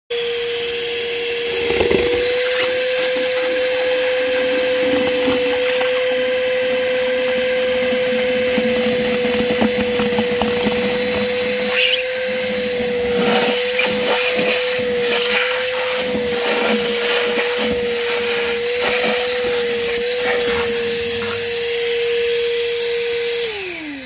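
Ridgid 18V cordless NXT 9-gallon wet/dry shop vacuum running with a steady whine, its hose sucking water out of a bucket with irregular crackling as water and air are drawn in. Near the end the motor is switched off and the whine falls away.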